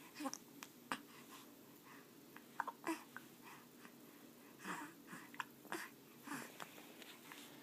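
Four-week-old baby hiccupping: several short, sharp hics at uneven spacing, with soft breathing in between.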